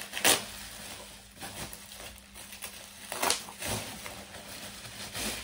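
Bubble wrap crinkling and rustling as it is pulled open by hand, with a few sharper, louder crackles, the loudest about a quarter second in and another a little after three seconds.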